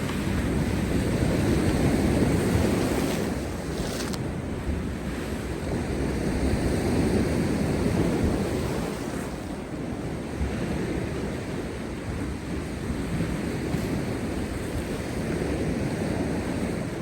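Heavy post-storm sea surf breaking and washing over rocks, swelling and easing in waves, with wind buffeting the microphone.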